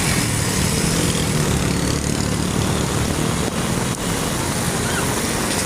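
Heavy rain falling steadily, with the low running of motor-vehicle engines in the street traffic underneath.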